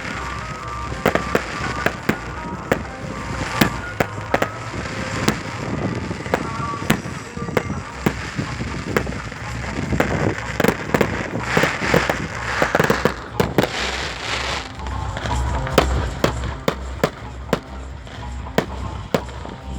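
Fireworks going off: a dense, irregular run of sharp bangs and cracks from rockets and firecrackers, with music underneath.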